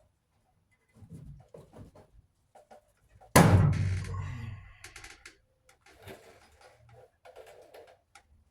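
Scattered clicks and taps of parts and tools being handled during the teardown of a clothes dryer, with one loud bang about three seconds in that rings out and fades over a second or so.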